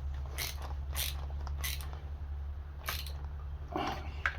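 A few short clicks and scrapes of a hand tool working the screws of a chainsaw's plastic pull-start cover, over a steady low hum.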